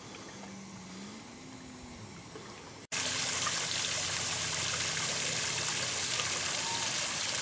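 Water from a floating lake fountain spraying up and falling back onto the lake surface, a steady splashing hiss. About three seconds in it cuts abruptly to a louder, closer sound of the spray, with a faint low hum beneath the quieter first part.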